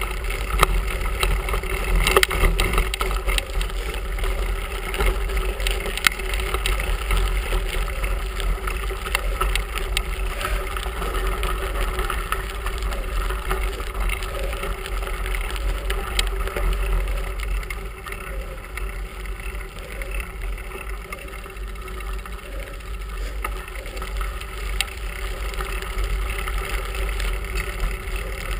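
Bicycle riding over a gravel carriage road, heard through a handlebar-mounted camera: a steady low rumble of wind and road vibration on the microphone, with scattered small knocks from bumps.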